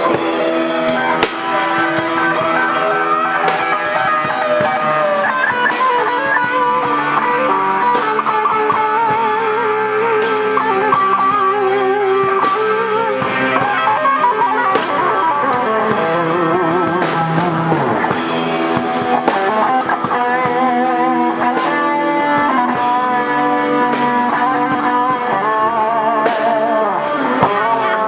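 Instrumental rock played on several guitars with a drum kit: melodic lead lines with wavering vibrato on held notes over strummed chords and a steady beat.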